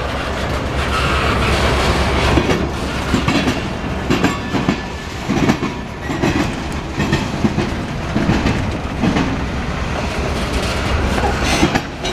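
Freight train boxcars rolling past at close range: a steady rumble of steel wheels on rail, with irregular clicking and clattering as the wheels pass over rail joints.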